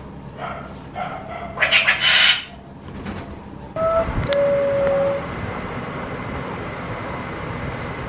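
Alexandrine parakeet calling: a few short calls, the loudest a harsh screech about two seconds in. After that, a steady background hiss with one brief held tone a little after the midpoint.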